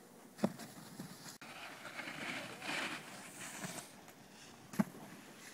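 Snowboard sliding and scraping over hard-packed snow, with two short thumps, one about half a second in and one near the end.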